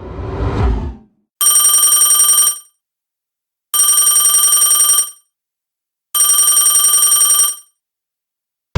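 A telephone rings three times, each ring a fast trilling burst of a little over a second with pauses between. About a second in, the tail of a rising swell from the previous effect ends just before the first ring.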